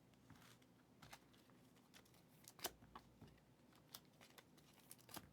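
Faint, scattered clicks and taps of trading cards being handled, about half a dozen over a few seconds, the loudest about two and a half seconds in.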